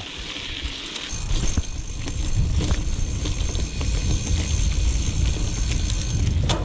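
Mountain bike being ridden on a trail, its tyres and frame rumbling, with wind buffeting the microphone and scattered clicks and rattles from the bike; the rumble swells about a second in and then holds steady.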